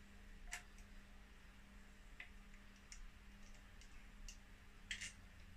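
Faint, irregular clicks of hand tools and small metal parts being handled, about one a second, over a low steady hum.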